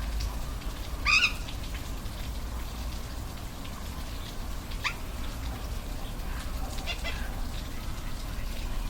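Steady rushing of a waterfall, with three brief animal calls over it: about a second in, near five seconds, and around seven seconds.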